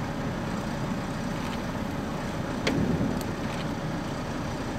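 Wind buffeting the microphone: a steady, wavering low rumble, with a single faint click about halfway through.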